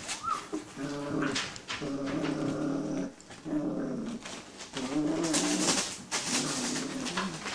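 Six-week-old Greater Swiss Mountain Dog puppies grumbling and growling at play: a run of about six low, drawn-out calls, each under a second. A hissy rustle comes in near the middle.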